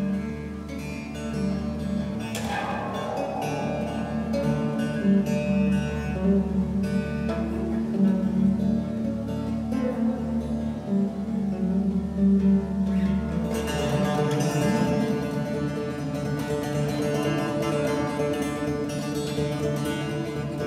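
Fretless acoustic bass guitar plucked in the rich reverb of an underground hole: repeated notes over a steady low note. About two-thirds of the way through, the low note stops and the playing turns denser and brighter.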